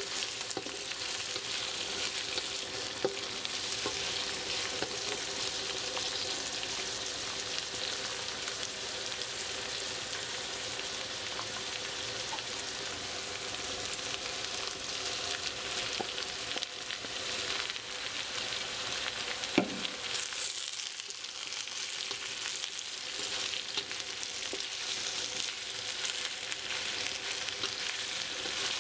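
Napa cabbage, sliced meatballs, shallots and chilies sizzling steadily in a stainless steel wok, with small clicks and scrapes of a spatula stirring them against the pan. A sharper knock comes about two-thirds of the way through, and the sizzle dips briefly after it.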